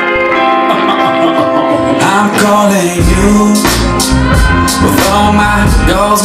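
Loud dance-mix music played back: held chords, then a sung vocal line comes in about two seconds in and a heavy bass beat kicks in about a second later.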